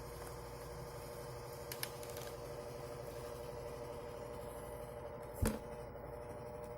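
A steady hum of several even tones, with a faint click about two seconds in and a sharper knock about five and a half seconds in.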